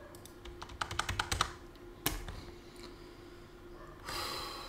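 Typing on a computer keyboard: a quick run of about half a dozen light key clicks, then a single sharper click about two seconds in. A soft hiss comes in near the end.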